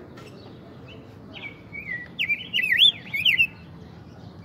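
Caged male rose-breasted grosbeak singing one rich, warbling whistled phrase of about two seconds, starting a little over a second in.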